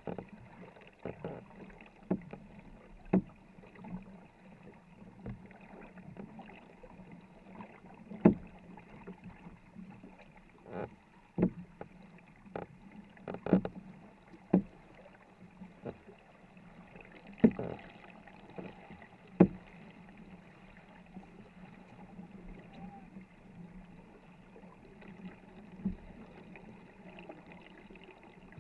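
Paddle strokes of a crew paddling a 24-foot wooden war canoe: water swishing along the hull, with sharp knocks every second or so, the loudest about eight seconds in.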